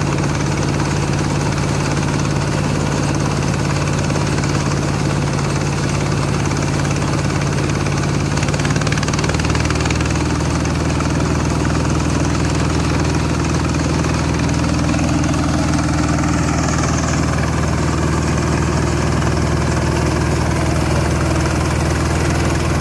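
Engine of a small Quick rice combine harvester running steadily while it cuts rice. Its note shifts a little about nine seconds in.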